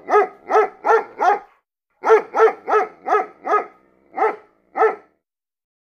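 A dog barking repeatedly at about three barks a second, in a run of four, a short break, a run of five, then two more spaced barks, stopping about a second before the end.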